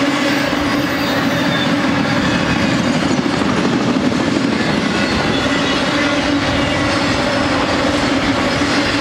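Freight cars loaded with truck trailers rolling past at speed: a loud, steady rumble and clatter of steel wheels on rail, with a constant hum under it.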